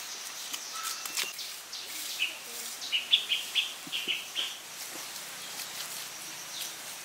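A bird calling: a quick run of about eight short, sharp notes in the middle, over a steady high-pitched outdoor hiss.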